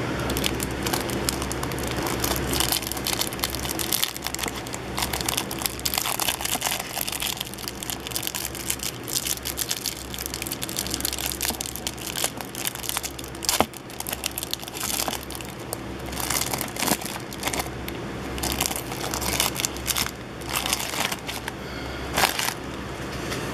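Clear plastic cellophane wrapper crinkling and crackling in the hands as a stack of trading cards is worked out of it, in irregular sharp crackles over a steady low hum.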